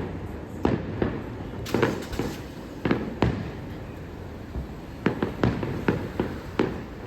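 Fireworks display going off: a dozen or so sharp bangs at uneven intervals, each trailing a short rumble, with a short lull in the middle.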